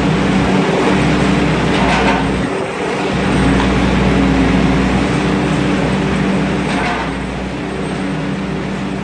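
Heavy machinery running steadily: a material-handling excavator's engine and a waste shredder, with the grab dropping waste into the shredder's hopper. There are brief louder bursts of clatter about two and seven seconds in.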